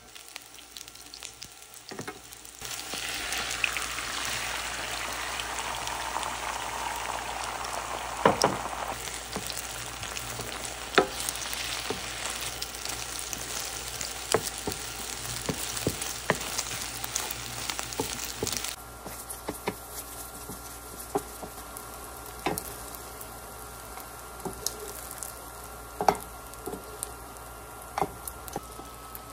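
Eggs and sliced green onion sizzling in hot oil in a nonstick frying pan as they are scrambled with a wooden spatula, with frequent short clicks and scrapes of the spatula on the pan. The sizzle gets much louder a few seconds in and drops to a quieter sizzle about two-thirds of the way through.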